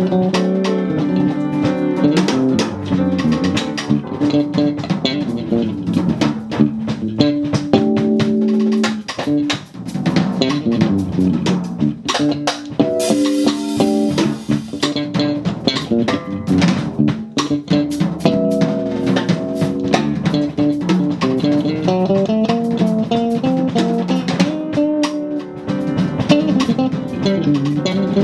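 A jazz-fusion quartet playing live: a drum kit with cymbals keeping a busy beat under bass and keyboard lines.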